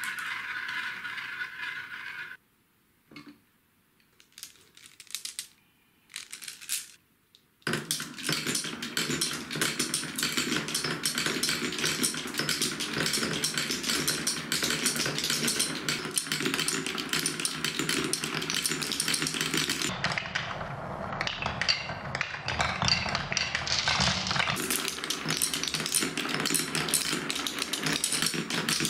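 Glass marbles on a wooden Quadrilla marble run. First they whir round a plastic catch bowl, which stops about two seconds in. A few seconds of near silence with scattered clicks follow, and from about eight seconds in comes a steady dense clatter of many marbles rolling down the plywood spiral tracks.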